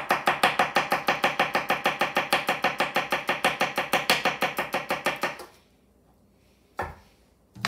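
Santoku-style knife chopping a celery stalk quickly on a wooden cutting board, an even run of about eight chops a second that stops about five and a half seconds in. A single knock follows about a second later.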